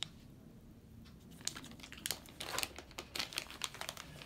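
Thin clear plastic sleeve crinkling as a wrapped chisel is handled and pushed into a pocket of a leather tool roll: quiet at first, then a run of sharp crackles from about a second and a half in.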